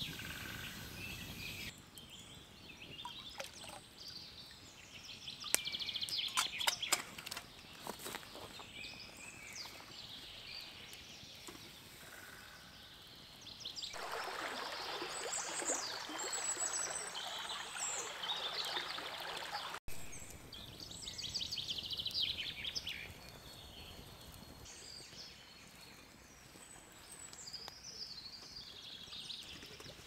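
Woodland birds singing, with a few sharp cracks about six seconds in. In the middle, a shallow stream runs for about six seconds and stops abruptly, then the birdsong carries on over a quiet background.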